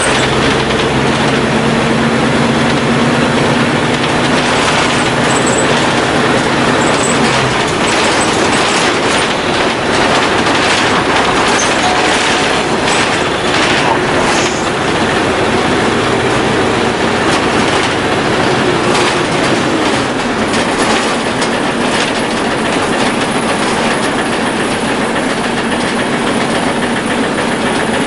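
Running sound heard inside the cabin of a 1997 Isuzu KC-LV380N city bus: its Isuzu diesel engine pulling under way over steady road and body noise. The engine note is strong for the first several seconds and then drops back, and a falling whine is heard in the middle.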